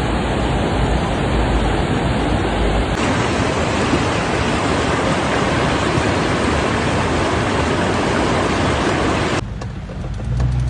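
Loud, steady rush of heavy water. It changes character abruptly about three seconds in, then near the end gives way to a quieter stretch with a low steady hum.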